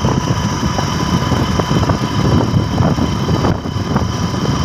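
Motorbike engine running at road speed, with wind rumbling over the microphone while riding.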